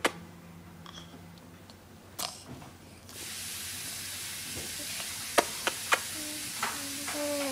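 A baby blowing kisses: wet lip-smacking pops, one about two seconds in and three in quick succession around five and a half seconds, then a short cooing vowel near the end. A steady hiss comes on about three seconds in and runs beneath them.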